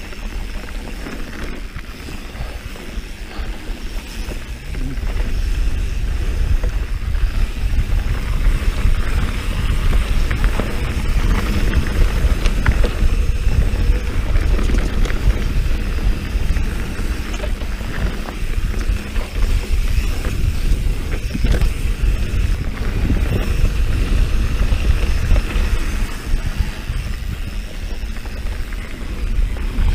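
Mountain bike riding fast down rocky dirt singletrack: wind buffeting the microphone as a steady low rumble, with tyre noise and the bike clattering over rocks in scattered knocks. It gets louder about five seconds in as the speed builds.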